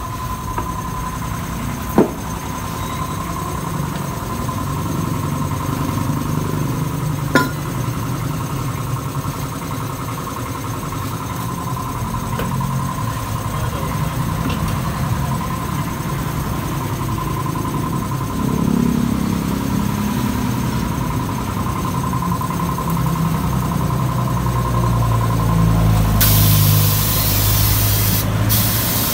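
Vehicle engines running steadily, with a steady high whine throughout and two sharp clicks in the first eight seconds. Near the end comes a loud hiss of compressed air lasting about three seconds.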